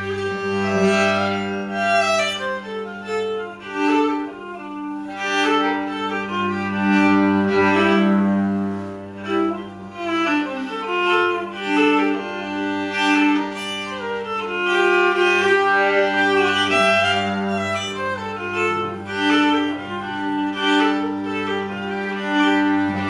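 Instrumental old-time Appalachian fiddle music: a bowed fiddle melody of held notes over a steady low bowed-string drone. The fiddles are cross-tuned to open G D G D.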